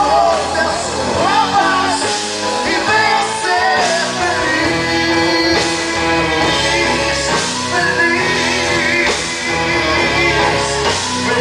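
Live Christian pop-rock band playing loudly: electric guitars, electric bass, keyboard and drums, with a singer's voice over the band.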